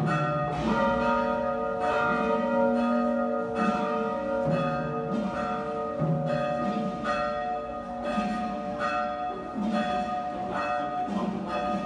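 Several church bells of different pitches tolling a funeral knell for the dead. Each strike rings on and overlaps the next.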